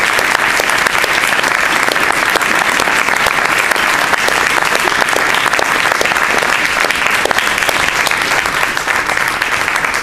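Audience applauding: a steady, dense clatter of many hands clapping that eases off slightly near the end.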